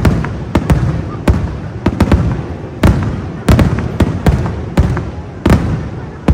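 Aerial fireworks shells bursting in quick succession, a rapid string of sharp bangs about two or three a second, each followed by a low rumbling echo.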